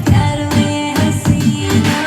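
Music with a steady drum beat, about two beats a second, over sustained melodic notes.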